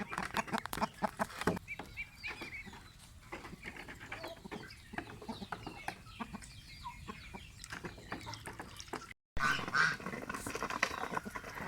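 Pet geese and a duck clucking and calling with short, scattered sounds and many small clicks. The audio drops out briefly about nine seconds in, and the calls come louder after it.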